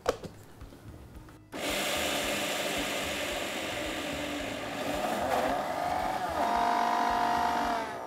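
Electric mixer grinder (mixie) running, grinding soaked urad dal with water into a thick batter. It starts abruptly about a second and a half in, its motor note shifts and then steadies over the last couple of seconds, and it stops just before the end.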